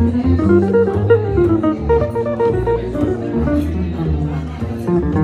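Jazz duo of archtop guitar and upright double bass playing a jazz standard: the guitar plays a run of short plucked notes over low plucked bass notes.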